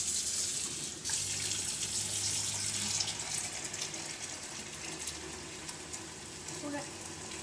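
Kitchen faucet running into a plastic pitcher in a stainless-steel sink, a steady stream of water filling the pitcher, gradually getting quieter.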